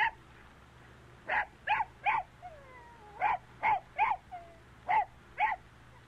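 A dog barking in quick runs: three barks, a faint falling whine, three more barks, then two, each bark short and sharp.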